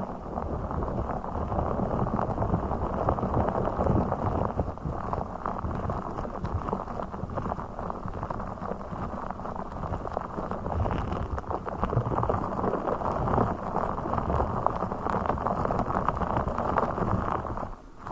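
A blue fish ASMR trigger object handled close to the microphone, making a continuous dense crackling with many tiny clicks and a muffled, bass-heavy tone.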